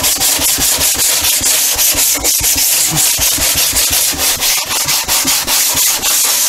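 Hand sanding of a SIG Kougar model airplane's balsa fuselage with a sanding block: quick, even back-and-forth scraping strokes, about five a second.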